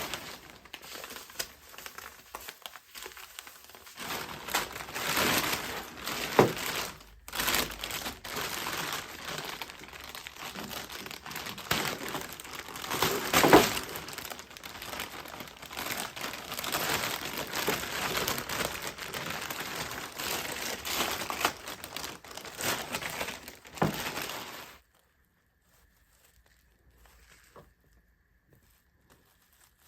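Irregular crinkling and rustling with scattered sharp crackles, as of something being handled, which stops abruptly near the end. Only a few faint ticks follow.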